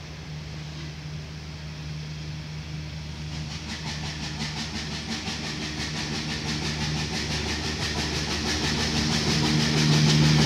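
Steam tank locomotive hauling a train of boxcars, approaching and growing steadily louder. A steady low hum runs throughout, and a fast, even beat sets in a few seconds in and strengthens as the locomotive draws near.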